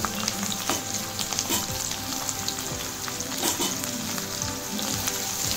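Sliced onion frying in hot ghee and oil in a nonstick wok: a steady sizzle with scattered small pops.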